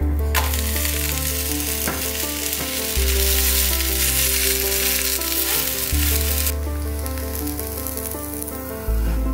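Chickpea-flour batter sizzling as it fries in oil in a nonstick pan; the sizzle cuts off about two-thirds of the way through. Background music with a slow, changing bass line plays throughout.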